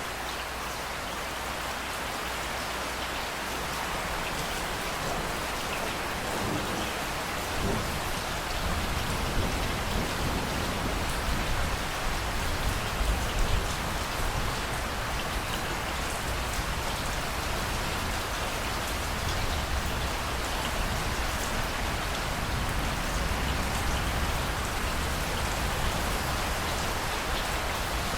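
Steady rain falling. A low rumble of thunder comes in about a quarter of the way through and rolls on under the rain.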